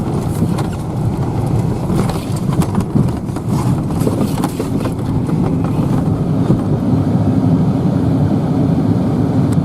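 Farm tractor engine running steadily while driving over rough frozen ground, with scattered rattles and knocks as it bumps along.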